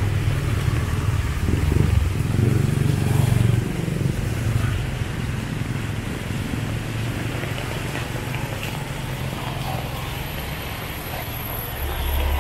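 Traffic on a wet street: a pickup truck's engine rumbles loudly as it passes close in the first few seconds, then motorcycles and other vehicles keep going by over a steady hiss of rain and wet tyres. The low rumble swells again near the end.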